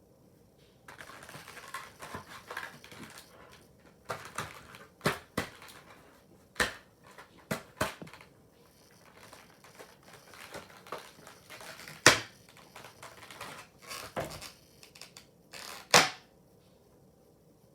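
Packaging being handled and opened: a run of sharp clicks and knocks among stretches of rustling, the two loudest knocks about twelve and sixteen seconds in.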